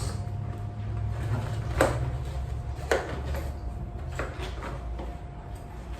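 Hands working a bicycle tire and its plastic puncture-resistant liner onto the rim: rubbing and handling noises with scattered knocks, the two sharpest about two and three seconds in.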